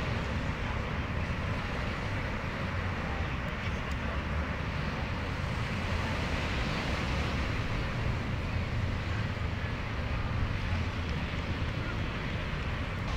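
Steady outdoor noise of wind rumbling on the microphone over the wash of ocean surf.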